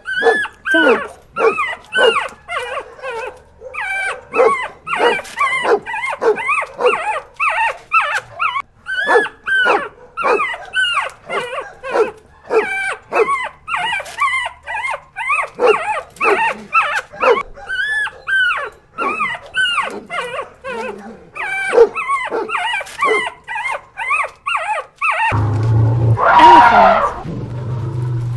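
German Shepherd puppies whining and yelping without a break: a quick stream of short, high cries, several a second. About 25 s in they give way to a louder, long elephant call.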